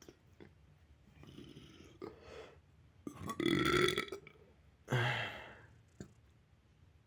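A boy burping: a long burp about three seconds in, then a shorter burp about a second later.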